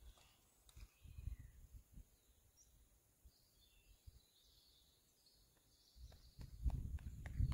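Faint, scattered bird chirps over quiet outdoor air, with occasional low buffets of wind on the microphone. About six seconds in, a louder, dense run of soft thuds and rustling starts as the body is shaken out.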